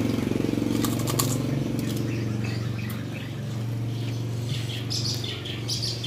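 Motorcycle engine idling steadily nearby, a low even hum. A brief rustling burst about a second in, and faint high chirps near the end.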